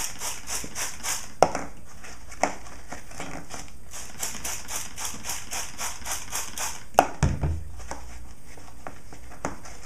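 Hand spray mister squirting rapidly, short hissy sprays about four a second in two runs, wetting paper towel. There are a few sharp knocks of handling, the loudest about seven seconds in.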